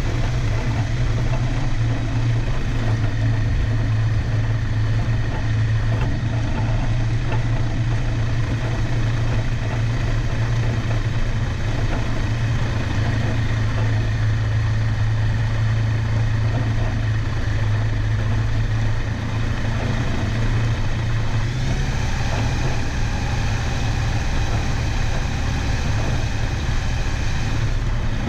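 Aeroprakt A22 light aircraft's engine and propeller running steadily at low taxi power as the plane rolls slowly over grass. The tone changes slightly about two-thirds of the way through.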